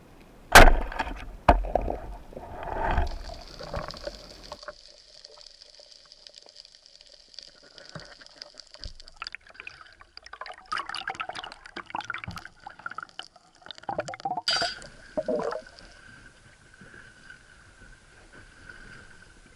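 Water sounds picked up by a spearfisher's action camera: two loud sharp underwater knocks about half a second and a second and a half in, then splashing and crackling at the surface.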